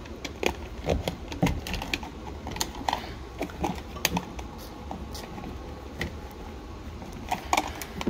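Stiff electrical wires being bent and pushed into a plastic electrical box, making irregular light clicks and taps.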